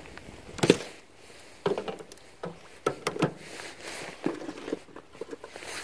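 Handling noise from fishing gear: a string of irregular knocks and clicks with rustling between, the sharpest about a second in.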